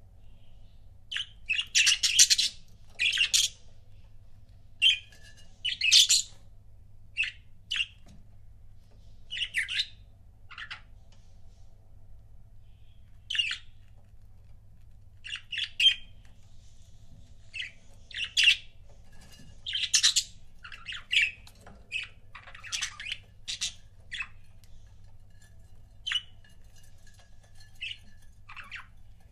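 Budgerigars chirping and squawking in short, irregular bursts of chatter, some calls loud and harsh, with brief pauses between them.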